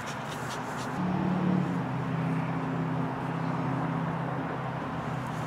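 A motor vehicle's engine running with a steady low hum that swells in about a second in, over constant outdoor background noise.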